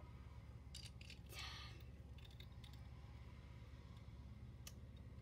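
Faint, scattered clicks and a brief rustle of plastic Transformers action-figure parts being handled and snapped into place, over a low steady hum.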